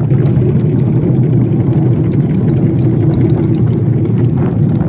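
Taiko drums played by several groups at once, the strokes blurring into a dense, steady rumble.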